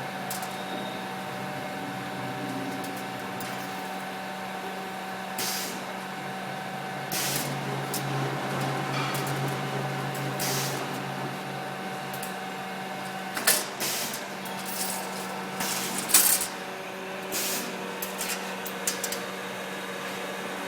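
CNC 2D wire bending machine running, with a steady motor hum. It is broken by several short hisses and sharp clacks at irregular intervals, the loudest about two thirds of the way through.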